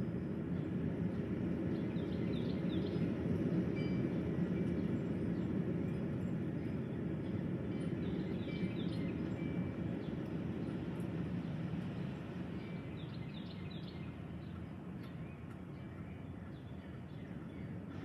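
Strong gusty wind rushing steadily, swelling in the first few seconds and easing off after about twelve seconds. A bird chirps a few times above it.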